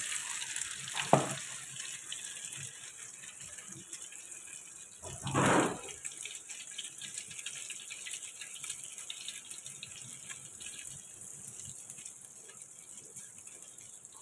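Egg-soaked bread cubes sizzling steadily in olive oil in a nonstick frying pan. A sharp knock comes about a second in, and a louder short scrape around five seconds in.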